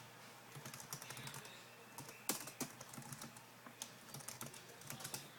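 Typing on a computer keyboard: a string of light, irregular key clicks, with one sharper click a little over two seconds in.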